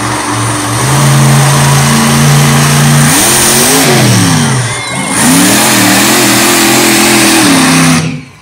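Monster truck engine at full throttle, loud. Its pitch holds steady, climbs as the truck leaves a jump about three seconds in, and drops back on landing. It then revs high again and holds there until the throttle is cut near the end.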